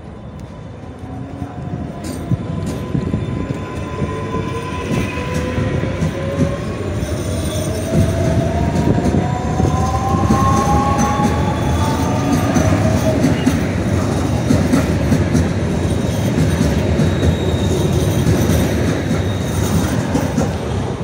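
Electric multiple unit of Warsaw's SKM pulling away past the platform. The traction motors give a whine that rises steadily in pitch for about the first dozen seconds as it gathers speed. After that comes a loud steady rush and clatter of wheels on rail as the cars go by close at hand.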